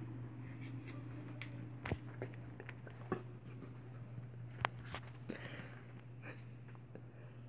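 Small clicks and rustles of handling a phone and a felt-tip marker, three sharper clicks among them, over a steady low hum.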